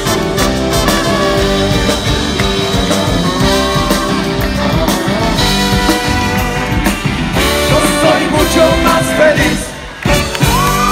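Live band playing a Paraguayan polka as a rock arrangement, with electric guitar, bass, drums, hand percussion and saxophone. The music drops out briefly near the end, then comes back in.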